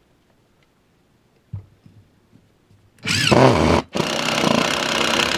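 Makita cordless impact driver driving a 3.5-inch Spax screw into a 4x4 post. It starts about three seconds in with a short burst whose pitch rises, stops for a moment, then runs loud and steady for about two seconds until near the end.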